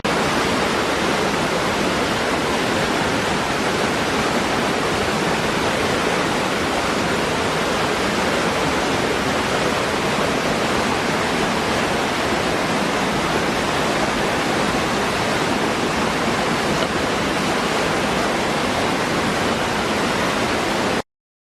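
Waterfall rushing: a loud, steady roar of falling water that cuts off suddenly near the end.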